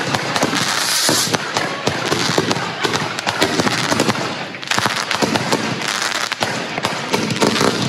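Fireworks set off from the ground, firing a rapid, continuous string of bangs and crackles, with bursts of hissing as shots go up.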